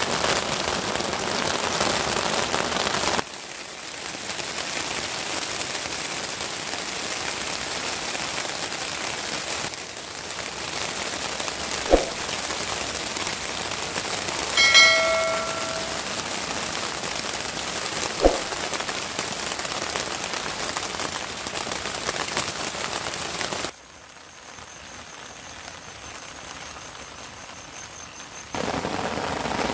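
Steady rain falling, its level jumping abruptly up and down several times. Two sharp knocks about six seconds apart midway, with a brief ringing tone between them.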